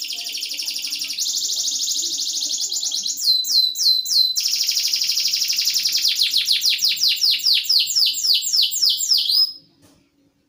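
Canary singing: a fast, dense trill, then a few quick downward-swept notes, then a long run of falling notes about five a second that stops abruptly near the end.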